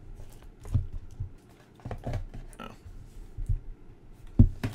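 Stacks of cards slid into a divided cardboard card box, with card edges scuffing and rubbing, then the box and its lid handled. Scattered soft bumps and knocks, the loudest one about four and a half seconds in.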